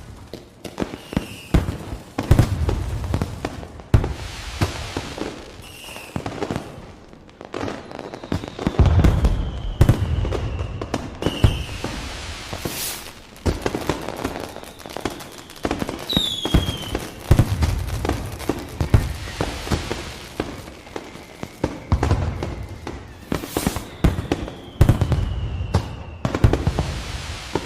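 Fireworks going off repeatedly: deep booms every couple of seconds, each with a trail of crackling, and now and then a falling whistle.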